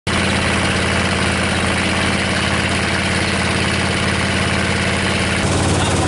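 Boat motor running steadily at speed, with water rushing past the hull; the sound changes about five and a half seconds in, the rushing hiss dropping away.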